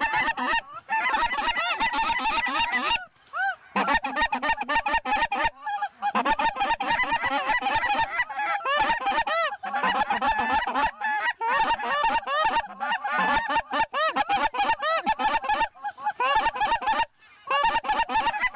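A large flock of lesser Canada geese honking, many short high calls overlapping in a continuous clamour, broken by a few brief pauses.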